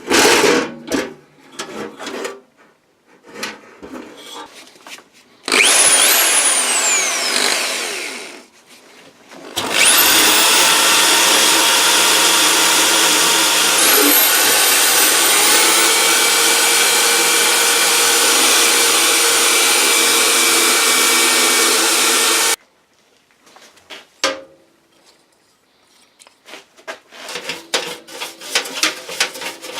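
Handheld power tool, run in a short burst that winds down with a falling whine, then run steadily for about thirteen seconds before stopping abruptly. Clicks and knocks of metal parts being handled come before and after.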